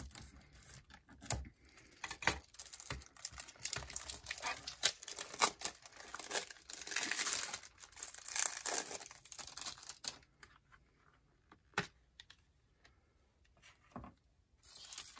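Cellophane shrink-wrap on a plastic CD jewel case crinkling and tearing as it is cut with scissors and peeled off, with many small clicks. After about ten seconds it goes mostly quiet, with a few sharp clicks as the jewel case is handled and opened.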